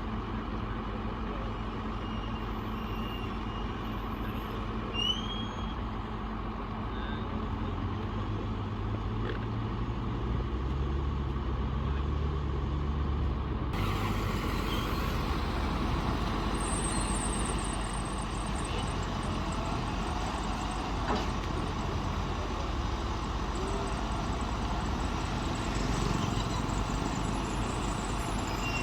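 Bulldozer's diesel engine running steadily with a deep rumble that swells briefly about ten seconds in. The sound changes abruptly about halfway through.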